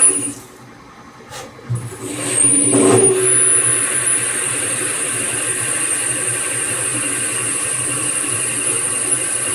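LEVIL LTC30 CNC lathe machining 4140 alloy steel, running with a steady high whine. It drops away about half a second in and starts up again about two seconds in.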